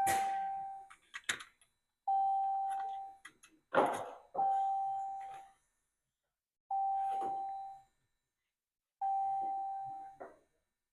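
Electronic chime sounding five times, about two and a quarter seconds apart, each ding on the same single tone and fading over about a second, with light clicks in between; it sounds while the misfire trouble codes are being cleared with a scan tool.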